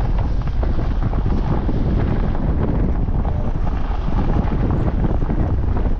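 Wind buffeting the microphone: a steady, dense low rumble with no distinct events.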